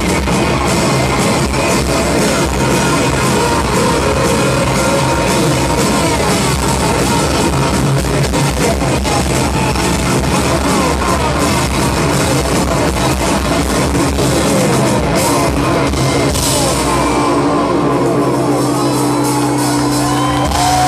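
Live rock band playing loudly in a large hall, with guitars, keyboards and drums. Near the end the band settles into steady held low notes.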